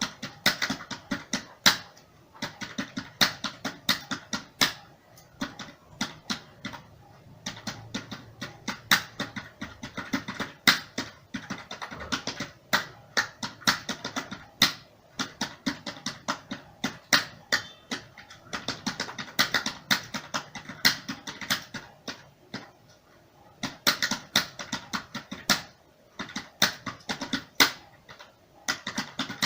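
Computer keyboard being typed on at a steady touch-typing pace of about 45 words per minute: rapid, irregular key clicks in runs, with brief pauses between bursts.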